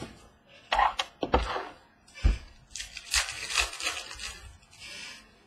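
Trading card packs being handled on a wooden table: a few sharp knocks in the first half, then a stretch of crinkling and rustling as a pack is torn open and its cards handled.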